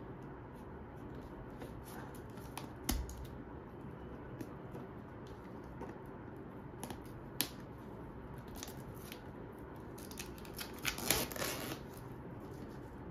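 A small blade scratching and slitting the plastic wrap and seal on a cardboard box, in scattered sharp clicks with a short flurry of louder scratches near the end.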